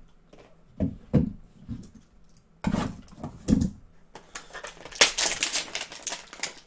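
A few dull thumps of cards and a cardboard hanger box being handled on a tabletop, then, from about five seconds in, a run of sharp crackling rips as the hanger box is torn open.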